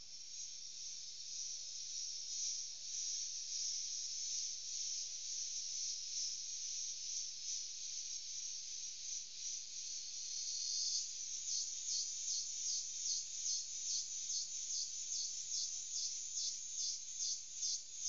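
High-pitched chorus of insects from the rainforest: a steady shrill buzz that, about eleven seconds in, turns into a pulsing rhythm of about two beats a second.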